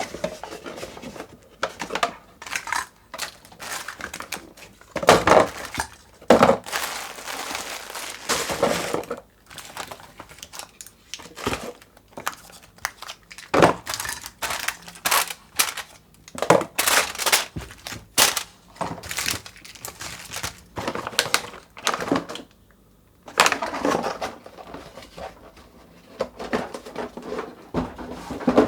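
Plastic candy and chocolate wrappers crinkling and rustling as candies are unwrapped, with irregular sharp clicks and taps.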